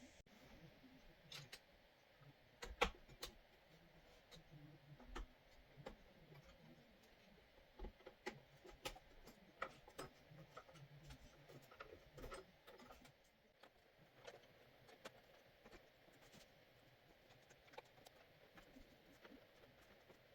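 Faint, scattered clicks and taps at an uneven pace, a few a little louder, from hands handling computer parts and hardware.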